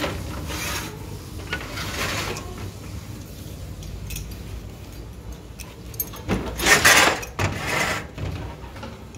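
Handling noise: the phone's microphone rubbing against cloth in several brushing rubs, the loudest around seven seconds in, over a steady low rumble.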